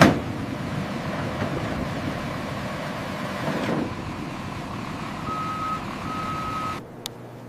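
Steady vehicle running noise with a brief loud burst at the start. Two short beeps of a reversing alarm come about five and six seconds in, and the vehicle noise cuts off suddenly just before the end.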